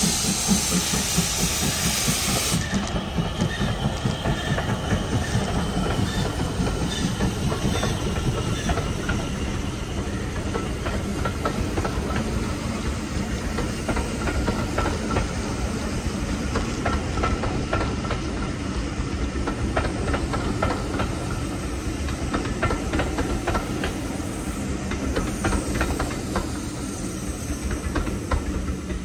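Steam train: a loud hiss of steam that cuts off abruptly about three seconds in, then the train running along the rails with a steady rumble and rapid clicking from the wheels.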